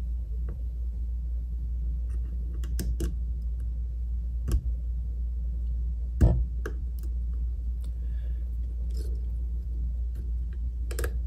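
Small metal parts clicking and tapping as a breaker arm is handled and fitted onto a Ford Model B distributor's breaker plate. A few sharp clicks come about 3, 4.5 and 6 seconds in, over a steady low hum.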